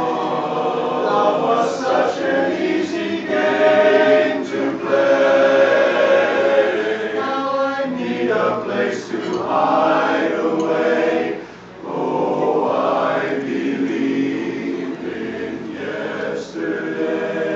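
Men's barbershop chorus singing a cappella, many voices in close harmony, with a brief pause for breath between phrases about two-thirds of the way through.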